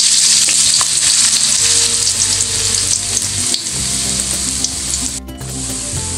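Tofu cubes frying in hot cooking oil in a wok, a loud steady sizzle. About five seconds in the sizzle breaks off briefly, then carries on a little quieter.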